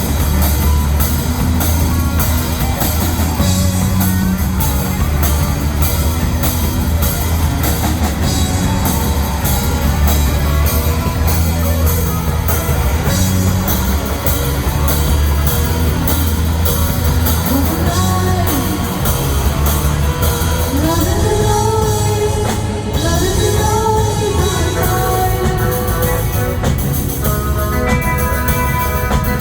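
Rock music with guitar, bass and drum kit playing continuously. From about two-thirds through, a melody line slides up and down in pitch.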